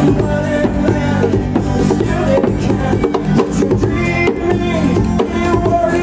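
Live band music: strummed acoustic guitars over drums and hand percussion, playing steadily.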